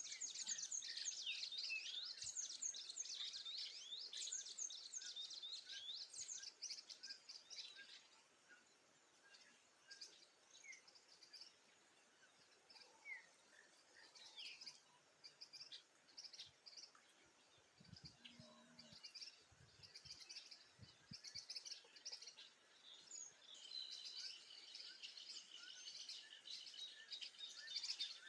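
Dawn chorus of several small birds: dense high twittering and chirping for the first several seconds, then scattered single calls, and near the end a steady high trill with more chirps over it.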